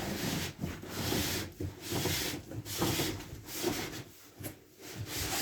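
Cardboard boxes rubbing and scraping against each other in several strokes, as an inner box is worked out of a larger shipping box.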